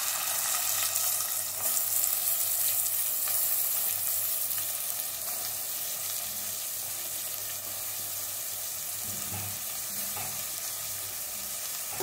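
Sliced onions sizzling in hot oil in a kadai with whole cinnamon, cloves and cardamom, the first stage of a sauté. The sizzle is a little louder for the first few seconds, then settles to a steady fry.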